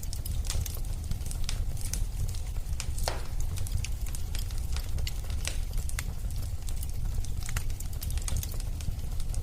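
Wood fire burning: a steady low rumble of flames with frequent irregular crackles and pops.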